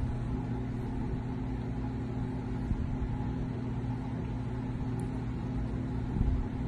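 A steady low hum made of several even tones, like a running machine or electrical hum.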